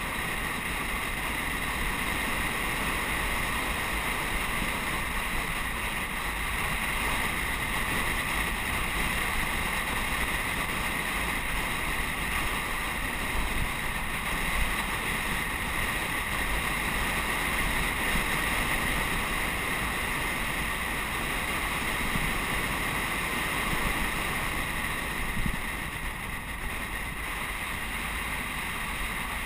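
Steady rush of wind over the microphone of a camera riding along on a fast road-bike descent, with no breaks or changes.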